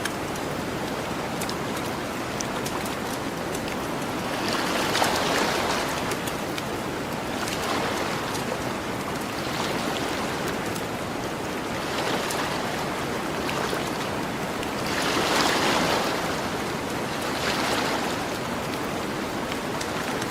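Gentle ocean waves washing onto a beach, swelling and falling back every two to three seconds, with the light crackle and pops of a campfire scattered over them.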